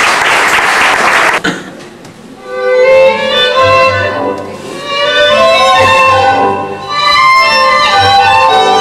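Audience applause cuts off abruptly about a second and a half in. After a short lull, tango music starts, with a violin carrying the melody.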